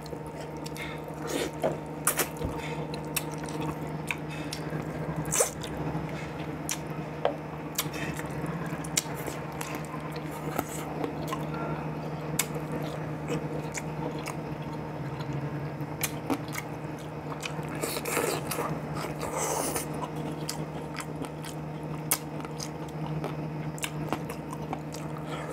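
Close-miked chewing, lip smacks and wet mouth clicks of a person eating boiled chicken and vegetables by hand, scattered irregularly. A steady low hum runs underneath.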